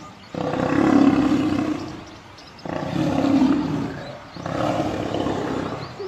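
Lions growling in a fight: three long, harsh growls, each about a second and a half, with short pauses between them.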